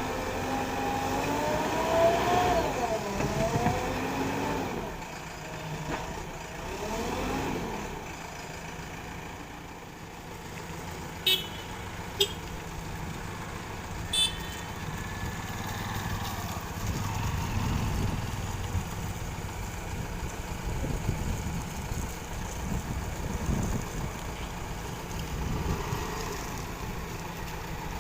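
JCB 3DX backhoe loader's diesel engine running steadily, with three short sharp clanks around the middle.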